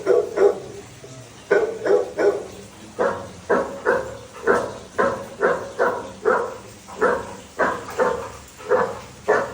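Labrador barking repeatedly: a few barks in quick groups, then from about three seconds in a steady run of about two to three barks a second.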